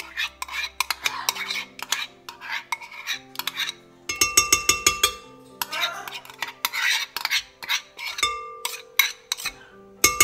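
A utensil scraping softened butter out of a bowl into a glass mixing bowl, with repeated clinks and knocks against the bowls. Soft background music with held notes plays underneath.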